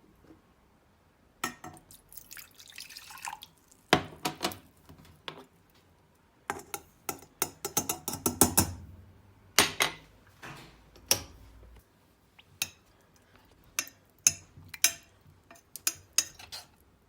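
Kitchen utensils being handled while a starch-and-water drink is made: a brief pour of liquid, then a run of sharp, irregular clinks and taps of a spoon against a cup or pan.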